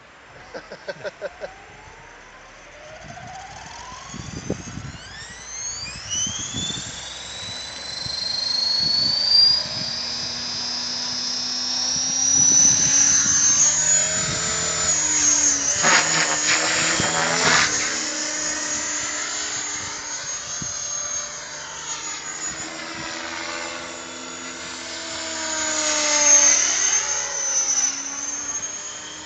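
Align T-Rex 550 electric RC helicopter spooling up. A whine climbs steadily over about ten seconds as the rotor comes up to speed. In flight the rotor and motor whine swings up and down in pitch as it manoeuvres, loudest around the middle and again near the end.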